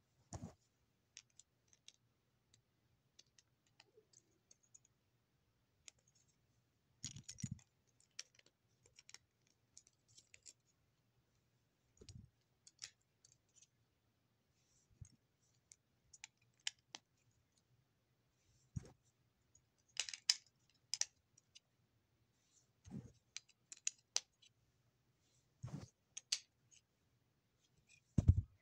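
Plastic Lego bricks clicking and tapping as they are handled and pressed together: scattered faint clicks, with a few soft thumps.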